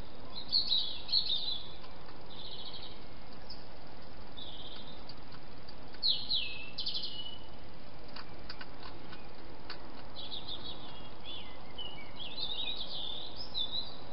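A bird chirping in short phrases of quick high notes, a burst every few seconds with a longer run of notes near the end, over a steady hiss. A few faint clicks in the middle.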